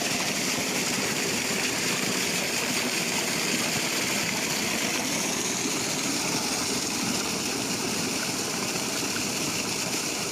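Water gushing steadily from the outlet of a submersible borewell pump, an even rushing hiss at a constant level.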